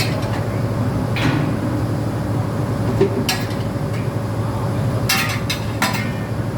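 A steady machinery hum with a constant tone, and metal objects clinking and clanking against each other at irregular moments, about six times.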